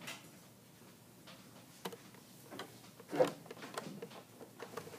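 Scattered light clicks and taps, then one loud knock about three seconds in as a plastic-bodied Pfaff sewing machine is grabbed and shifted on the table.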